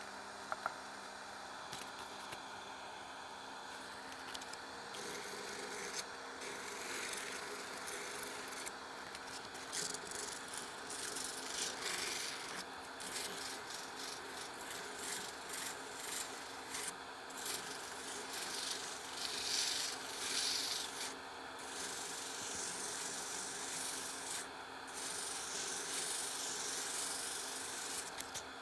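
Sandpaper held against a walnut handle spinning on a wood lathe, rubbing in uneven swells of hiss over the lathe's steady hum.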